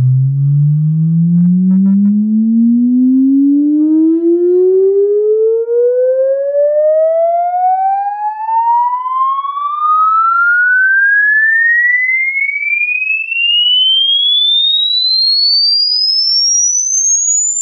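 Harman Kardon Onyx Studio 9 Bluetooth speaker playing a sine-wave frequency sweep for a loudness test: a single loud tone gliding steadily upward from deep bass to a high whistle, with faint overtones riding above it. The sound level meter reads about 100 to 110 dB.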